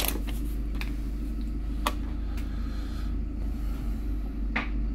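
A few sharp computer mouse clicks over a steady low hum, with a softer knock near the end.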